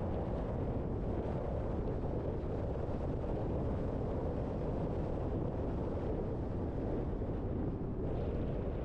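Steady noise of a car driving along a road: tyre, engine and wind noise with no break or change.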